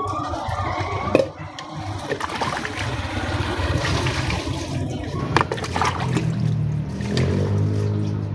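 Water running steadily, with sharp clinks of dishes. A low hum joins about six seconds in and lasts to the end.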